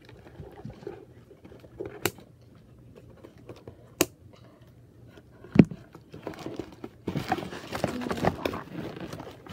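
Scissors snipping at doll packaging, two sharp snips a couple of seconds apart, then a louder knock with a dull thud. Near the end, cardboard and plastic packaging rustles and crinkles steadily as the doll is pulled out of the box.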